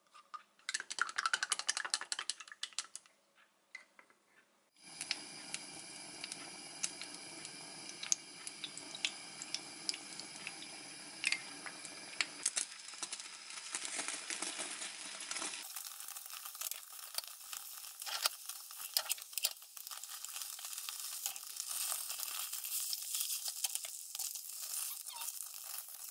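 Eggs beaten in a glass mug, a rapid clicking against the glass for about three seconds. Then beaten egg sizzling steadily in a square nonstick omelette pan over a gas flame, with scattered taps and scrapes of chopsticks and a spatula as the egg is rolled.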